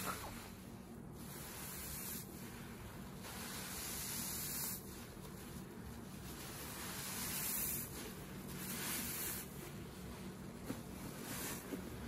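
Soapy porous bath sponges squeezed and worked by hand in a bowl of thick foam and soapy water: wet squelching and a fizzing hiss of suds, swelling with each squeeze every second or two.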